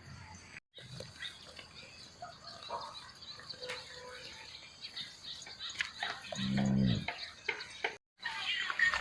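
A single short, low call from a farm animal, falling slightly in pitch, about six and a half seconds in, over scattered clicks and outdoor background sounds.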